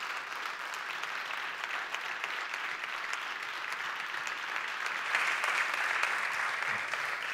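Audience applauding, growing a little louder about five seconds in.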